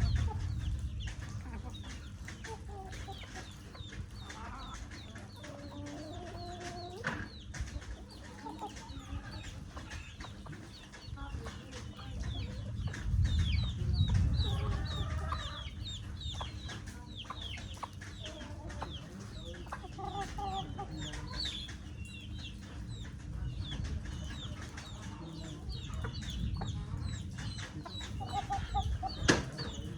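Chickens clucking, with many short high chirps throughout, over a low rumble that swells near the start and again about halfway through.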